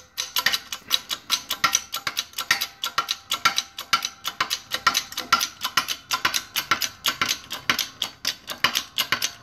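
Hydraulic shop press pump clicking rapidly and unevenly, about six or seven sharp clicks a second, as the press ram is driven down onto a steering clutch spring retainer to compress the clutch spring under load.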